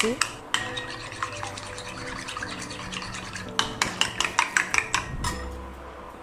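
Metal spoon beating raw egg in a ceramic bowl: quick clinks of the spoon against the bowl at the start and another fast run about three and a half seconds in, with softer stirring between.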